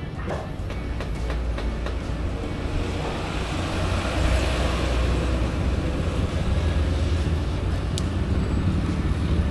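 Steady low rumble of vehicle noise that grows louder over the first few seconds, with a single sharp click near the end.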